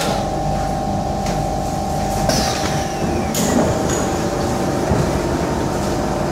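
Kawasaki Heavy Industries C151 metro train heard from inside the car: a steady motor hum and rumble. About two seconds in, an electric whine falls quickly in pitch as the train brakes to a stop at the platform, and a single thump follows near the end.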